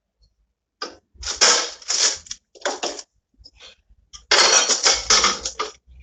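Things in a fridge rattling and clattering as they are handled and moved about, in irregular loud bursts from about a second in, the longest near the end.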